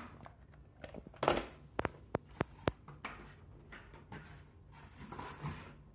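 Cardboard box insert being handled and pulled free: a brief scraping rustle about a second in, then about five sharp clicks in quick succession, and softer rustling near the end.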